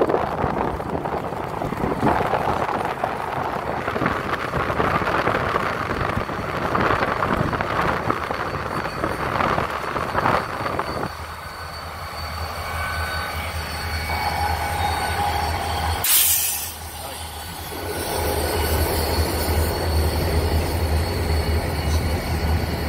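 A diesel-hauled freight train passing close by. The low rumble of its locomotives comes in about halfway through, and the freight cars roll past with wheels squealing on the rails.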